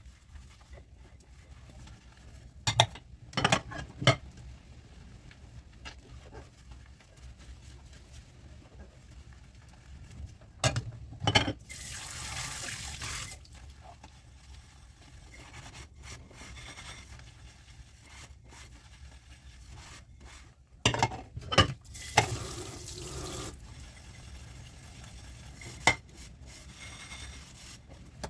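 Dishes being washed at a kitchen sink: scattered clinks and knocks of dishes against each other, and the tap running briefly twice, each time for a second or so.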